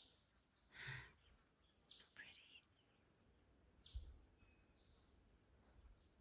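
Near silence in woodland, broken by three brief, faint high bird chirps falling in pitch, about two seconds apart.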